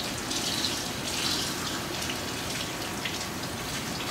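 Kitchen tap running steadily into a sink, a continuous even hiss of water.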